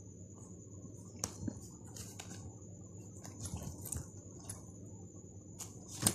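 Light scattered taps and knocks of clutch purses being handled and set down on top of one another, over a faint steady high-pitched whine.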